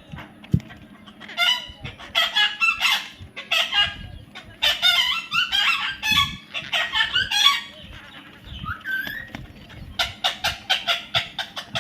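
A parrot calling in rapid runs of harsh squawks, in three bouts with short pauses between them; the last bout is a fast, even series. A single sharp knock sounds about half a second in.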